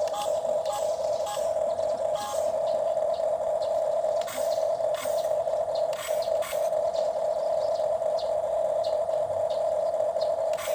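Toy excavator's small electric motor and gearbox whirring steadily, with scattered light clicks.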